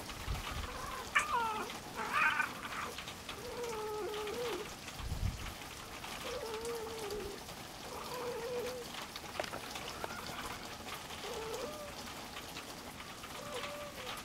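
A cat making a string of low, wavering, drawn-out calls, about six of them a second or two apart, with a higher meow about a second in.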